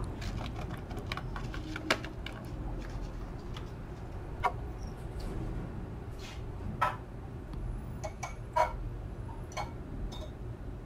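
Scattered light clicks and taps from glassware and a plastic wax bag being handled as a glass beaker of emulsifying wax is lifted off a digital scale, over a low steady hum.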